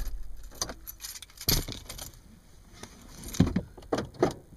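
Car keys jangling and clicking in a 2011 Subaru Forester's ignition as they are turned and pulled out, in several short sharp rattles, the loudest around one and a half and three and a half to four seconds in.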